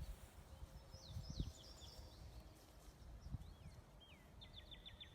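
Faint birdsong from a small songbird: a few high chirps and slurred whistles, then near the end a quick run of about seven falling notes. Under it are a low outdoor rumble and a few soft thumps.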